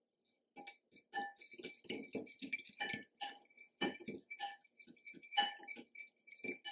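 A metal fork stirring a wet spice marinade in a glass bowl. It clinks and scrapes against the glass in quick, uneven strokes, starting about a second in, and each clink rings briefly.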